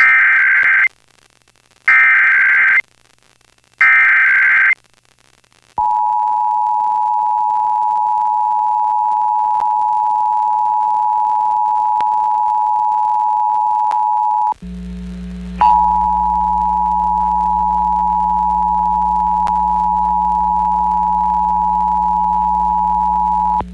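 Emergency Alert System Required Monthly Test over FM radio: three one-second bursts of warbling SAME header data tones, then the steady two-tone EAS attention signal. About nine seconds into the attention signal it cuts out for about a second, and a mains hum comes in underneath it that stays as the tone resumes.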